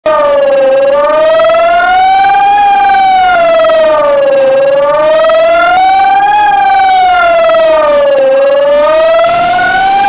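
Civil defense early-warning siren wailing loudly, its pitch slowly rising and falling in a cycle of about four seconds.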